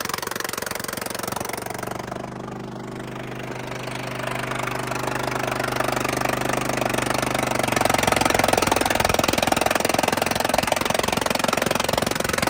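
Vermeer SC30TX stump grinder's engine running steadily. About six seconds in it grows louder and rougher as the cutting wheel grinds into the pine stump.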